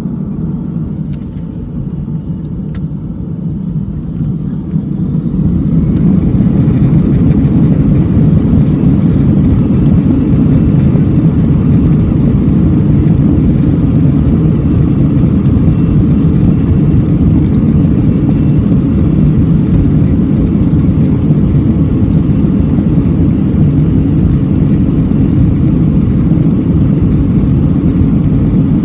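Airbus A319 jet engines heard from inside the cabin, spooling up to takeoff thrust about five seconds in and then holding a loud, steady roar.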